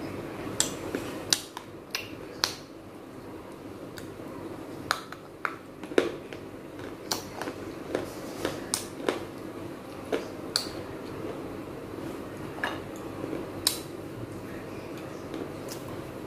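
Sharp, irregular crunching and cracking from baked clay (terracotta) pot pieces being chewed, about twenty crisp cracks spread unevenly, over a steady low hum.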